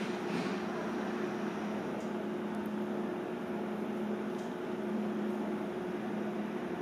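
Steady mechanical hum over an even hiss from indoor machinery, with the lower hum tone wavering in and out and a few faint light clicks.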